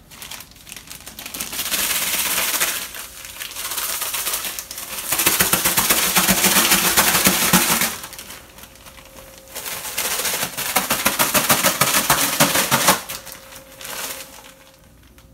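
A plastic zip-top bag of raw chicken pieces and Starburst flavouring being shaken to coat the bait, crinkling and clattering in rapid shakes. It comes in three bouts of a few seconds each, and the middle one is the longest and loudest.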